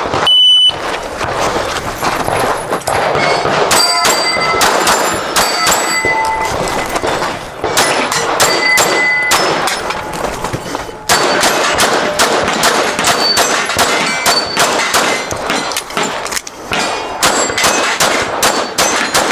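Electronic shot timer beep about half a second in, then a pistol stage being shot: rapid handgun shots with steel targets ringing on hits, a pause of about a second near the middle, then another fast string of shots and rings.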